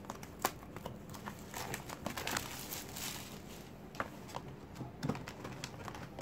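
Plastic shrink-wrap crinkling and tearing as it is peeled off a cardboard trading-card booster box, with scattered sharp crackles and rustles.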